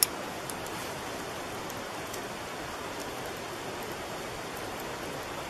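Steady, even outdoor hiss with a sharp click right at the start and a few faint ticks scattered through it.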